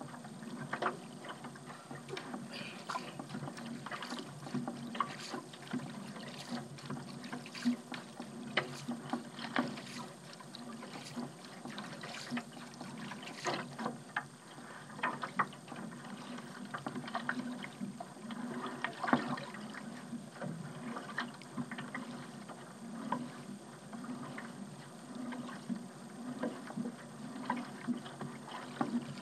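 A paddle dipping and pulling through harbour water: irregular splashes and drips, stroke after stroke, over a steady low hum.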